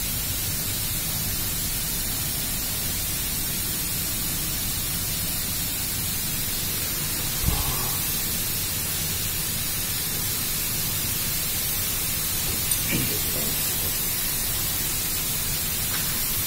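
Loud, even hiss from low to high pitches, with one short low thump about seven and a half seconds in.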